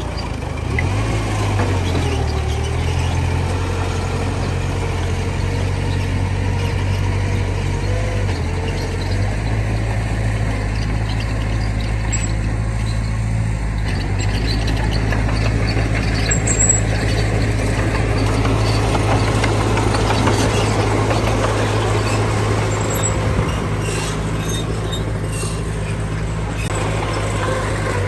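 Heavy earthmoving machinery working: a diesel engine runs steadily, its note shifting a couple of times, with short squeaks and clicks in the second half.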